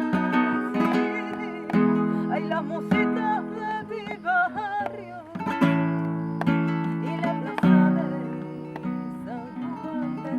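Music: a strummed acoustic guitar, with a firm strum every second or two under a wavering melody line.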